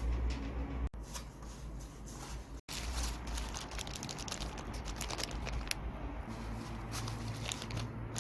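Close-up handling noise from work on the adapter and its parts: irregular clicks, scrapes and crackles over a steady low hum, broken by two abrupt cuts.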